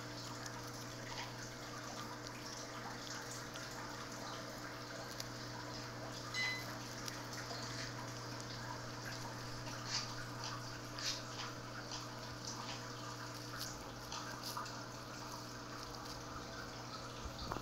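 Persian cat biting and chewing grass blades held out by hand: scattered small, irregular clicks over a steady low electrical hum, with one short high tone about six seconds in.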